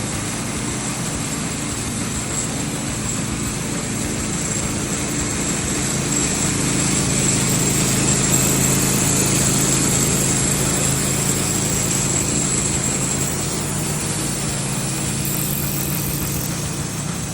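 A machine engine running steadily, with a thin high whine over it, swelling a little louder through the middle and easing back.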